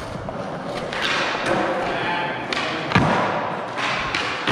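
Skateboard wheels rolling over a concrete floor, with a single sharp clack of the board about three seconds in as the skater attempts a flip trick.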